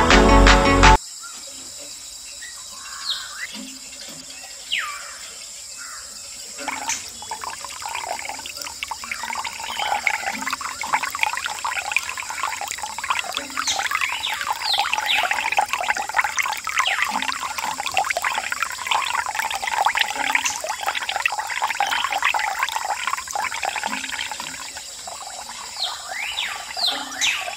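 Water trickling from a miniature hand pump's spout into a small tin basin. At first there are only a few drips. From about seven seconds in, a thin stream pours and splashes into the water, easing a little near the end.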